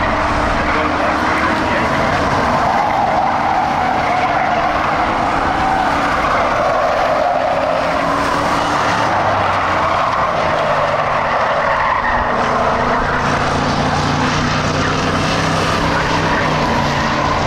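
A pack of Ford Crown Victoria dirt-track race cars with V8 engines running together on the track, a loud, steady drone whose engine tones rise and fall as the cars circle.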